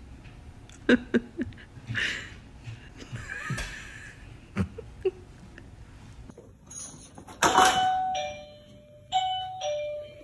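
Doorbell chime ringing two ding-dongs near the end, each a clear high tone stepping down to a lower one. Before it come a few light knocks and thumps.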